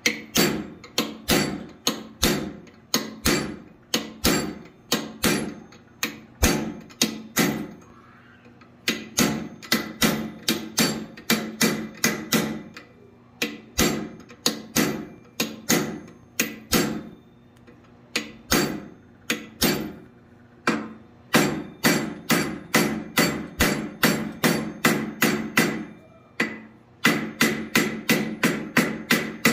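Blacksmith's hand hammer striking a hot steel bar on an anvil, forging the feet of a woodpecker forward. The blows fall about two a second in runs of several seconds with short pauses between, and the anvil rings after each blow.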